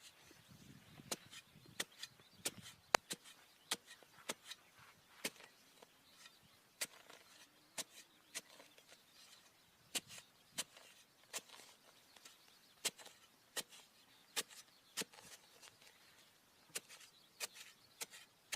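A knife cutting into small wooden sticks: irregular sharp clicks and taps, about one or two a second.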